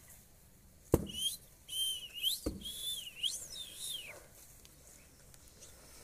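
Indian ringneck parakeet whistling a run of rising and falling notes for about three seconds, preceded by a sharp click about a second in and with another click midway.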